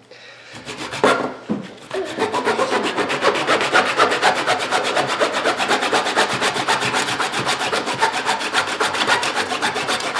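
A knife blade sawing rapidly back and forth through the hard inner core of a cricket ball. It makes a fast, even grating rasp of many strokes a second, which sets in steadily about two seconds in after a few first strokes. The people cutting take the harsh noise for metal on metal, from something metallic inside the core.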